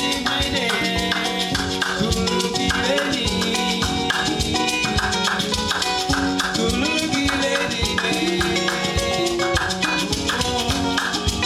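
Upbeat instrumental band music with a fast shaker and drums keeping a steady beat under repeating short melodic figures, without vocals.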